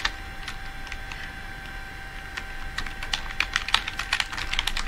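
Typing on a Logitech K235 wireless keyboard: a few scattered keystrokes, then a quick run of key clicks over the last two seconds.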